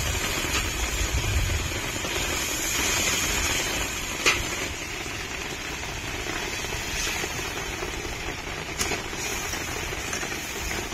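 Spiced curry with potatoes simmering and sizzling in a kadai just after water has been added: a steady hiss, with a sharp knock about four seconds in and a few fainter clicks later.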